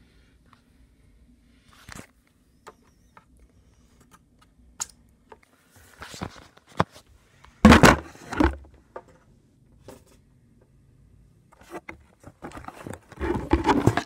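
Rustling and rubbing of a phone being handled and moved around, with scattered small clicks and knocks. There are two louder bursts of scraping, about seven and a half seconds in and again near the end.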